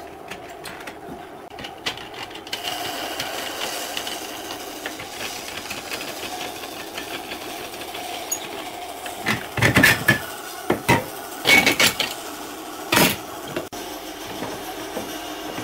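Steel bar clamps on a glued-up pine panel being loosened and lifted off: a few metallic clanks and knocks in the second half, over a steady background hum.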